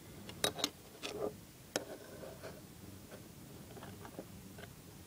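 Light metallic clicks and taps as a steel ruler is handled against the barrel of an old revolver on a table: two quick clicks about half a second in, another pair around a second in, one near two seconds, then a few fainter ticks.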